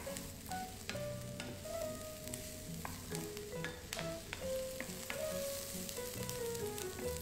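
Diced onion and garlic sizzling in oil in a nonstick pan while they sauté until soft, stirred with a wooden spatula that gives small scattered taps, under a soft background melody.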